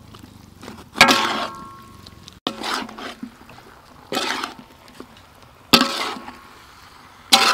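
Metal spatula scraping and clanking against an aluminium wok as a thick, sauce-coated mix of meatballs and mushrooms is stirred. There are five strokes, about one every one and a half seconds, and a couple of them ring briefly off the metal.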